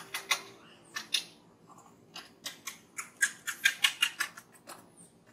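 A series of short, sharp clicks, irregular at first and then quickening into a fast run of about eight clicks just past the middle.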